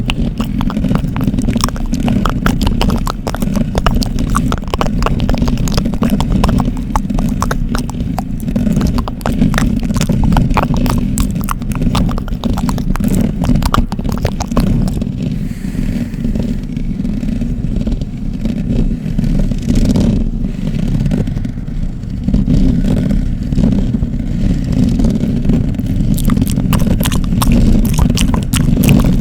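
ASMR scratching close to a sensitive microphone: fast, dense scratches and crackling clicks over a deep, muffled rumble. The clicks thin out for a few seconds in the middle.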